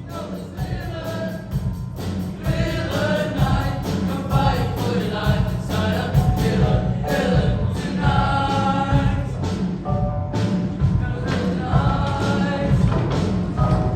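Junior high girls' choir singing in parts over accompaniment with a steady beat and heavy bass, getting a little louder about two seconds in.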